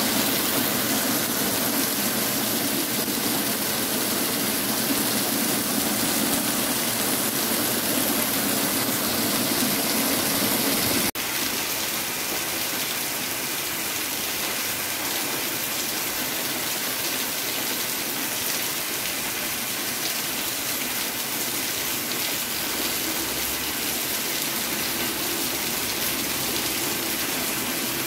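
Heavy rain pouring steadily onto trees and paved ground. About eleven seconds in there is a brief break, and the rain is a little quieter after it.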